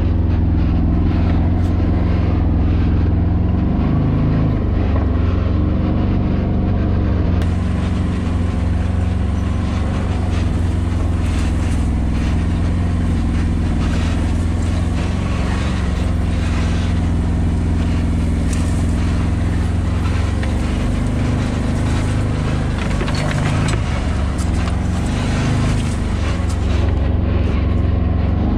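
Can-Am Maverick Sport's 100 hp Rotax V-twin engine running steadily at a slow trail pace, heard from the driver's seat. From about a quarter of the way in until near the end, a scratchy hiss of tall grass and brush swishing along the sides of the vehicle is added.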